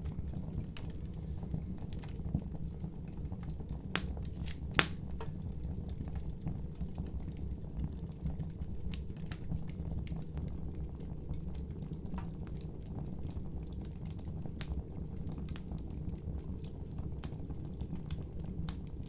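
Wood fire crackling: a steady low rumble of flames with many scattered sharp pops, the loudest about five seconds in.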